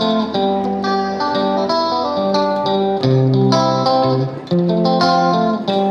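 Background music: an instrumental piece led by plucked guitar notes.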